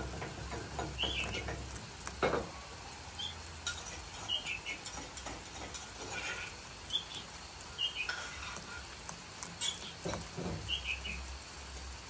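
Steady patter of rain, with short high bird chirps every second or two and a couple of soft knocks.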